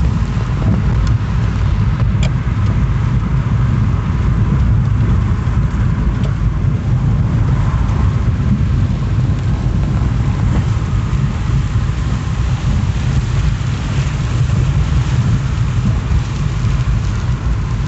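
Steady cabin noise of a car driving along a road: a constant low rumble of engine, tyres and wind, with a lighter hiss over it.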